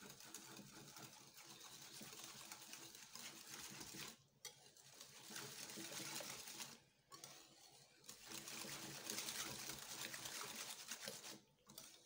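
Wire whisk beating a thick semolina batter in a bowl: faint, quick, even strokes of the wires scraping and ticking against the bowl, stopping briefly about four, seven and eleven and a half seconds in.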